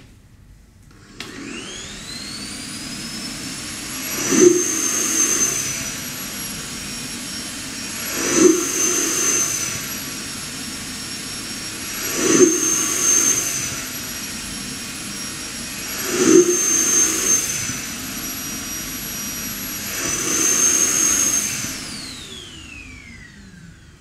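Samsung Clean Station dust-emptying station: a click as the canister is seated, then its suction motor spins up with a rising whine. It runs loud, surging five times about every four seconds, each surge opening with a sharp thump, then winds down with a falling whine. This is its automatic five-pulse suction cycle pulling dust out of the stick vacuum's canister.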